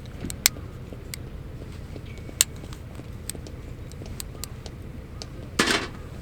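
Wood campfire crackling, with irregular sharp pops, two of them loud, and a louder short crackling burst near the end.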